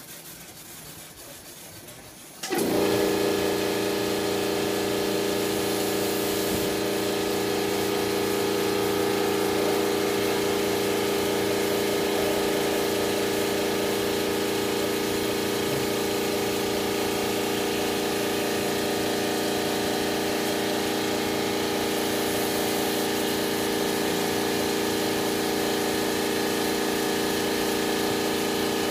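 An electric machine motor starts suddenly about two and a half seconds in and then runs steadily with a loud, even hum.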